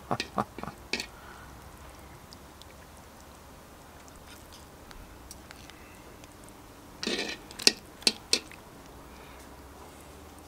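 A metal utensil clicking against the cast-iron Dutch oven and a plate as braised meat is lifted out: a quick cluster of sharp clicks in the first second, a brief rustle about seven seconds in, then three more clicks.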